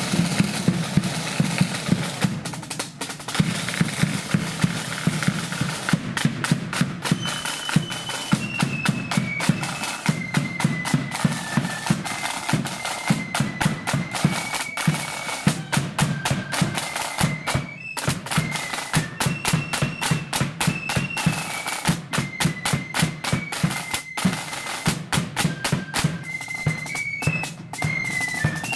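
Marching flute band parading: side drums and bass drum beat a steady march, with flutes taking up a high melody from about seven seconds in.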